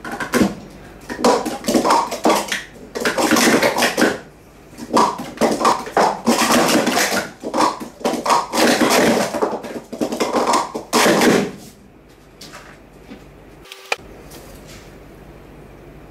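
Red plastic sport-stacking cups clattering as they are rapidly stacked up and down in quick runs, cup rims knocking against each other and onto the mat. The clatter stops about twelve seconds in, leaving a low hiss with a single sharp click.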